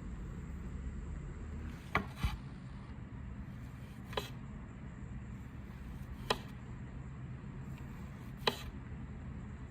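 A few short, sharp knocks, one pair close together and then single ones about two seconds apart, over a steady low hum.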